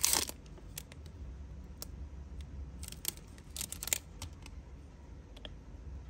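Scattered small clicks and taps from a Zippo lighter being handled, with a quick cluster of clicks about four seconds in.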